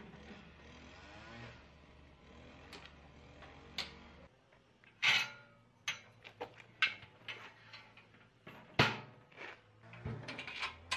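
Casters of a loaded steel welding cart rolling on concrete, then a run of sharp metal clanks and clicks as the cart's folding steel table extension is swung out and its locking pins are pushed into place, the loudest clank about nine seconds in.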